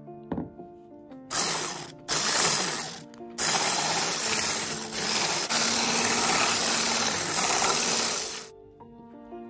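Hand-held stick (immersion) blender running in a bowl of raw eggs and peanut butter: two short bursts about a second in, then a long steady run that cuts off near the end. Soft background music plays underneath.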